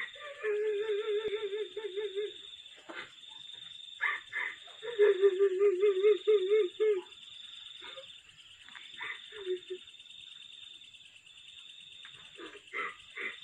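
A strange wavering, trilling call sounds twice, each time for about two seconds, over a steady chorus of insects.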